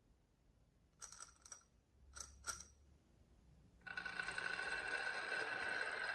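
Marbles clicking against each other four times with a short ring, then, about four seconds in, a steady, louder rattle of marbles rolling down a wooden marble run.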